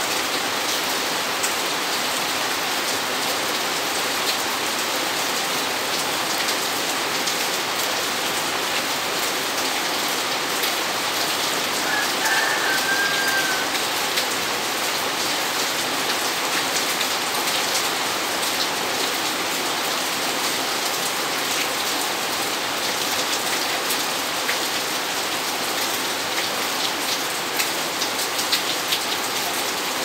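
Steady rain falling on a paved yard and garden plants, an even hiss with scattered close drops ticking, and a brief high chirp about twelve seconds in.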